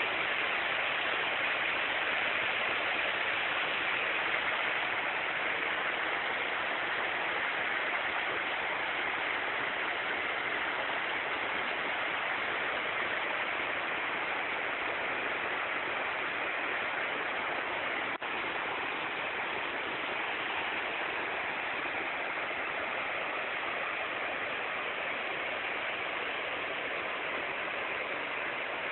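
Waterfall: a steady rush of falling water, with a momentary dip about two-thirds of the way through.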